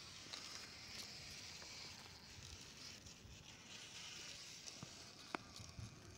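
Near silence: a faint steady hiss with a few small ticks and one sharper click about five seconds in.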